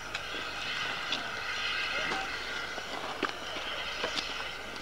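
Small steam tank locomotive moving slowly at close range: a steady hiss of steam with a few sharp clanks about a second apart.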